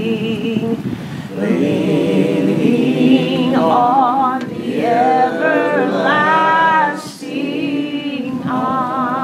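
A group of voices singing a hymn unaccompanied, held notes with vibrato. A higher woman's voice stands out in the middle, and the singing breaks off briefly about seven seconds in.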